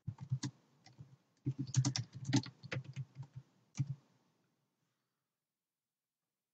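Computer keyboard being typed on in quick runs of keystrokes, entering a search query; the typing stops about four seconds in.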